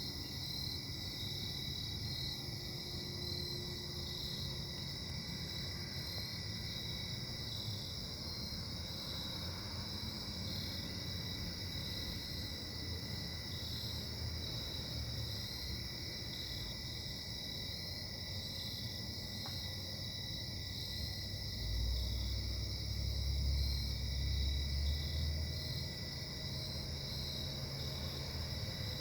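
Steady low engine drone from a nearby industrial plant, swelling louder for a few seconds about three-quarters of the way through, which the listener puts down to bad bearings. Crickets chirp steadily over it.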